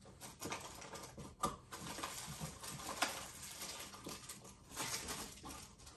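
Crinkling plastic packaging with small clicks and taps as a handheld two-way radio and its battery are handled.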